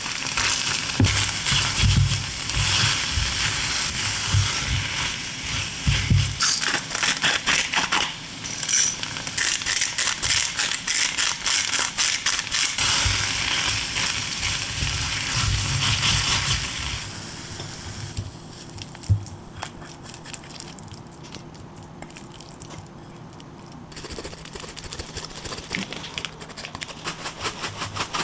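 Tomato risotto sizzling in a pan while a silicone spoon stirs and scrapes through the rice, in uneven strokes with dull knocks against the pan. About seventeen seconds in the stirring stops and it goes much quieter, with a single click a little later.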